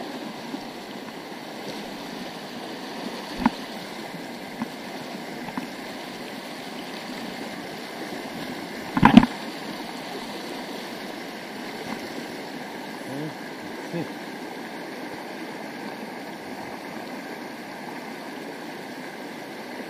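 Steady rush of a shallow, rocky mountain stream running over stones. A few short knocks stand out, the loudest a quick clatter about nine seconds in.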